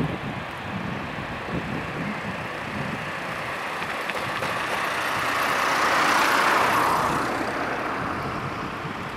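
Noise of a passing vehicle, swelling to a peak about six seconds in and then fading.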